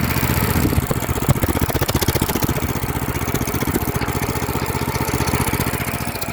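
Harbor Freight mud motor's small engine running steadily with rapid, even firing pulses, now that its no-spark fault (pinched lanyard wires and a dead coil) has been fixed.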